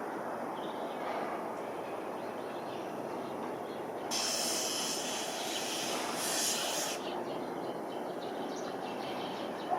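Jet airliner's engines running with a steady rumble, joined by a loud hiss for about three seconds in the middle.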